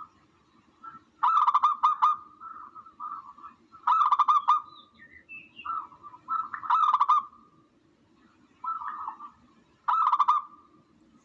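Recorded tukmo dove calls played as a hunting lure: four calling phrases a few seconds apart, each a run of pulsing notes with a louder, harsher burst in the middle.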